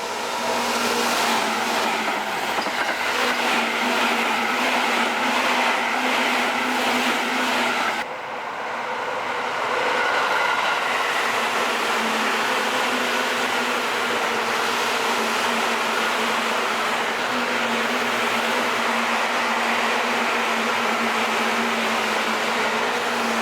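Seibu 6000 series electric train running: steady running noise with humming tones. The sound changes abruptly about eight seconds in, at a cut between shots.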